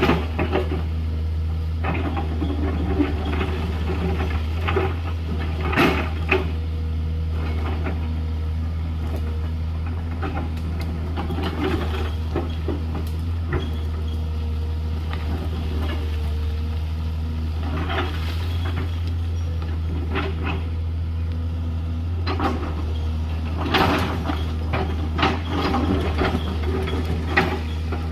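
JCB 210LC excavator's diesel engine running steadily with a low drone, under scattered knocks and scrapes of the bucket working gravel and stones. The sharpest knocks come about six seconds in and several times near the end.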